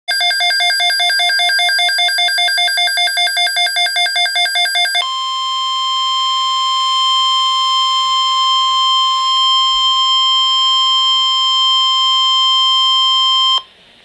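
Midland weather radio sounding an alert through its small speaker: rapid pulsed beeping, about four beeps a second, for about five seconds, then the steady NOAA Weather Radio warning alarm tone, held for about eight seconds and cutting off suddenly. This is the alert signal that comes before a severe thunderstorm watch broadcast.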